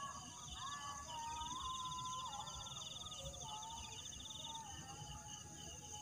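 Night insect chorus: crickets trilling in fast pulses, over a steady high-pitched buzz. A faint tone wavers up and down in pitch beneath it.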